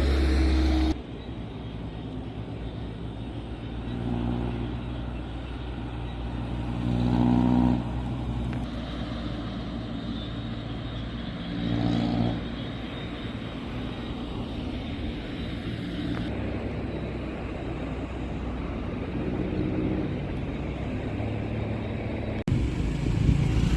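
Motor vehicle engines running, swelling louder several times as they rev or pass, broken by abrupt cuts between shots.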